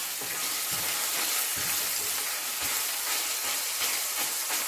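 Sliced onions, garlic cloves and green chillies sizzling in hot oil in a metal pan, with a wooden spatula stirring and scraping against the pan now and then.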